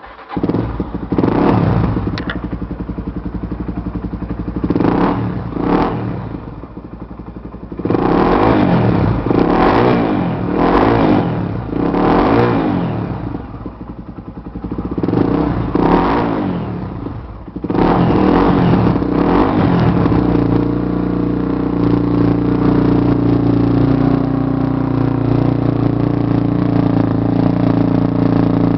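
Honda CBX 250 Twister's single-cylinder four-stroke engine with an aftermarket Roncar exhaust starts up and is revved in a series of blips, each rising and falling. After about 18 seconds it settles into a steady, even run.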